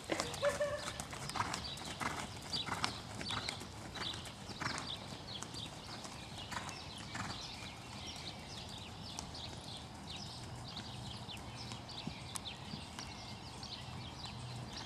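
A horse's hoofbeats on sand arena footing, a quick run of soft strikes that grow fainter as the horse moves away.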